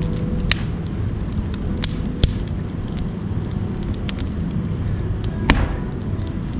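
Firewood burning in a wood stove: a steady low roar from the fire with several sharp pops and crackles from the wood.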